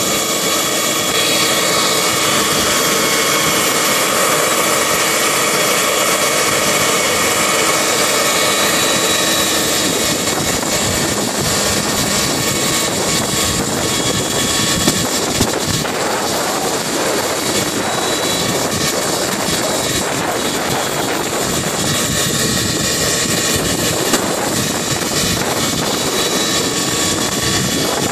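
Turbine-powered scale model helicopter hovering low: a steady high turbine whine over the rushing noise of the rotor blades.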